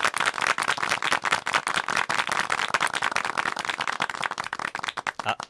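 Live audience clapping, a dense patter of many hands that thins out and dies away near the end.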